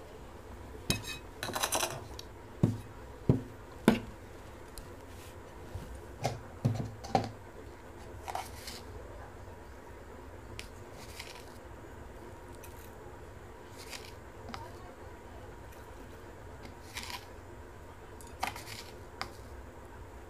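Scattered clinks, taps and knocks of steel bowls and food being handled on a tabletop, busiest in the first eight seconds. After that only a few soft clicks as a plastic spoon is dipped into a plastic jar and its contents are spooned over a steel bowl of fermented water rice.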